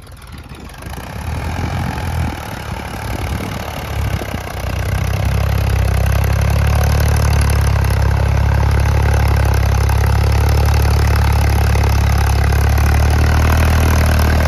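Ford 3600 tractor's three-cylinder engine running. It builds over the first few seconds and then, from about five seconds in, holds a loud, steady drone at higher revs.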